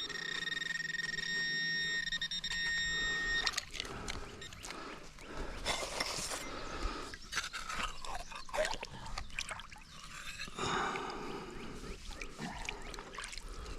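Metal detector sounding a steady high tone on a target that reads 13 to 14 on the display, cutting off after about three and a half seconds. Then comes a stretch of irregular scraping and knocking noises.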